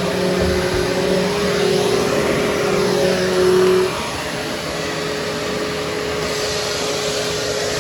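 Vacuum cleaner running steadily over carpet, a loud whooshing motor noise with a steady hum. About four seconds in the hum changes and the sound gets a little quieter.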